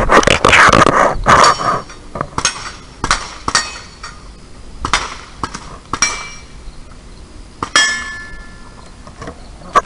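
A loud rushing noise for the first second and a half, then a string of sharp metallic clinks and knocks, some ringing, roughly one a second.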